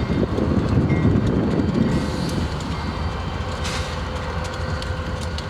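Diesel freight locomotives running with a steady low engine rumble, loudest in the first two seconds, with a few light clicks.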